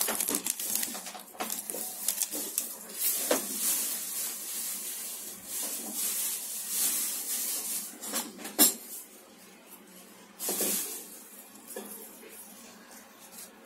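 Handling noise of a large glass perfume bottle turned over in gloved hands: scattered rubs, clicks and light knocks, the sharpest about eight and a half seconds in.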